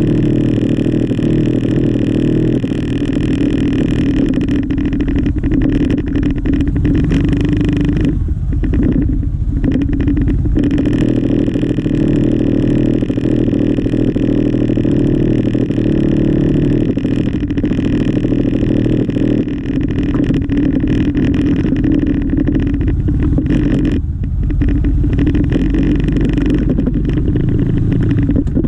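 Yamaha XMAX 300 scooter's single-cylinder engine idling steadily while the scooter stands still.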